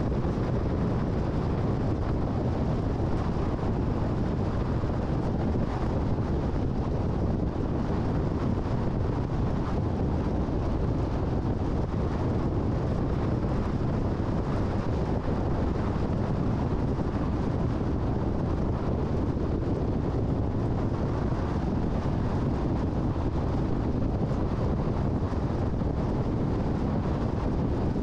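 Steady road noise of a car driving at highway speed: low tyre rumble and wind noise, even and unchanging.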